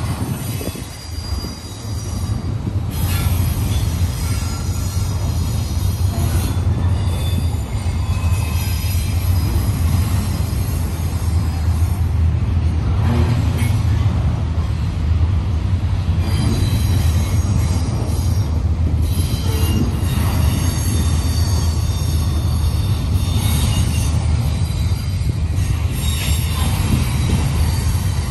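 Double-stack intermodal container cars of a freight train rolling steadily past on the rails: a continuous low rumble, with high wheel squeals coming and going.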